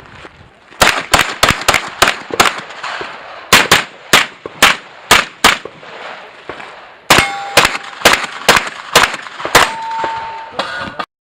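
Rapid pistol fire in three strings of about six shots each, with steel targets ringing when hit, clearest in the last string. The sound cuts off suddenly near the end.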